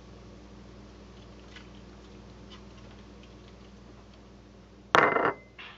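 Low steady hum with faint, irregular ticks as seasoning is sprinkled by hand over a whole raw chicken in a foil-lined dish. About five seconds in comes a sudden loud clatter lasting about a third of a second, then a smaller one.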